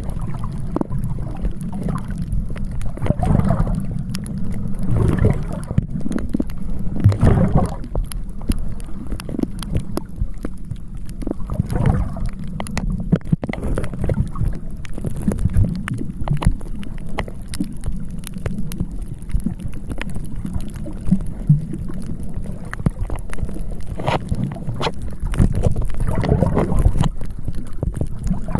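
Sea water washing and lapping in repeated surges every few seconds, under continuous wind rumble on the microphone.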